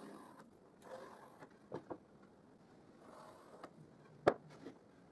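Wooden strips being handled and set down on a wooden workbench: soft rubbing and sliding, a couple of light knocks, and one sharp wooden knock about four seconds in.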